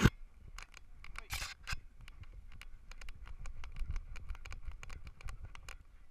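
Clicking and rattling from a GoPro camera harness worn by a trotting miniature schnauzer: quick, irregular sharp clicks with a low rumble from the mount moving.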